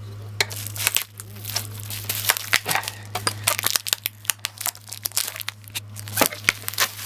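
Plastic wrapping being torn and crinkled off a skateboard deck, a dense run of irregular crackles and rips.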